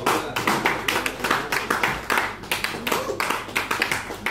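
Audience clapping: a small crowd's applause with separate hand claps standing out.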